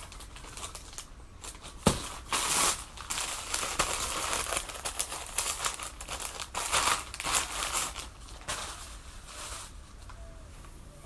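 Crinkly packaging and clothing being handled and unwrapped during an unboxing, in irregular rustling bursts, with a sharp click about two seconds in.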